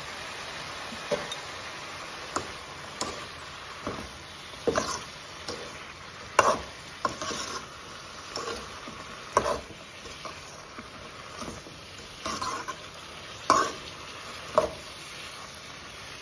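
Metal spoon scraping and knocking against an aluminium kadai as chopped bottle gourd is stirred, in irregular strokes, over a steady frying hiss.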